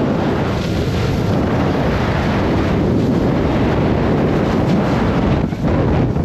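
Wind buffeting the microphone of a camera carried down a ski slope: a loud, steady low rumble with a brief dip about five and a half seconds in.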